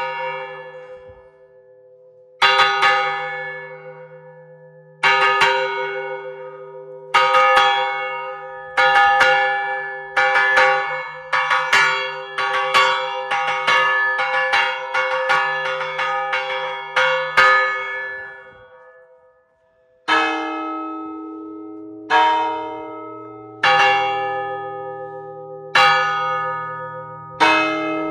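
Church bell struck by hand, its clapper pulled against the rim with a strap, ringing out in repeated strokes that speed up to about one a second. After a short pause near the end, a second, deeper bell takes over, struck about every two seconds.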